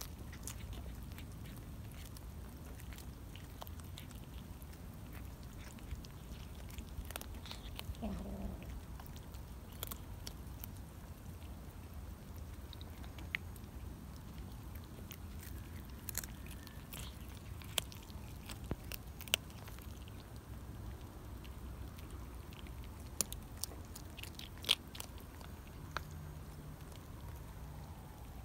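Kittens eating, with scattered small clicks of biting and chewing, and a short cry falling in pitch about eight seconds in.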